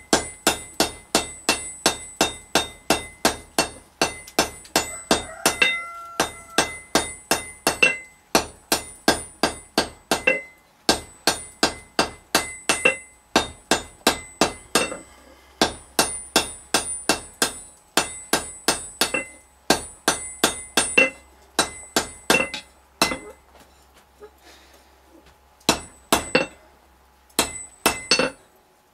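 Blacksmith's hand hammer forging a glowing-hot bar on an anvil: quick runs of blows, about four a second, each with a bright metallic ring, broken by short pauses. Near the end a few spaced blows straighten the bar.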